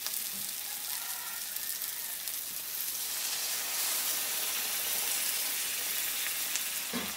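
Soyabean chunks and potatoes in masala sizzling steadily in a hot kadai, with water poured into the pan partway through.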